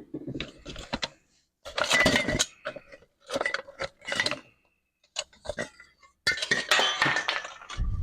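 Metal objects clinking and clattering in short, irregular bursts, as when hand tools or loose metal pieces are picked up and set down.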